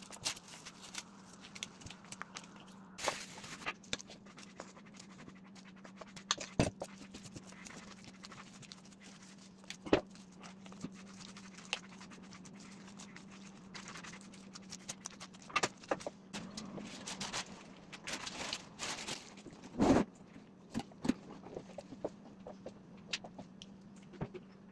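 Handling noises from a bamboo sushi rolling mat and plastic wrap being worked by gloved hands: scattered light clicks and taps of the bamboo slats, brief crinkling of the film, and a few louder knocks, over a steady low hum.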